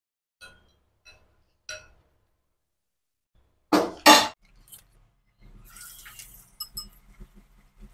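A steel ladle clinks lightly three times, then clanks twice loudly against the stainless-steel stove top about four seconds in. Then batter goes into the hot oil with a short sizzle, followed by a few small clinks.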